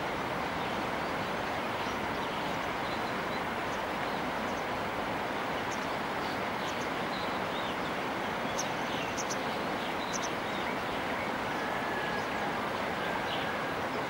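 Steady rushing of a whitewater river rapid.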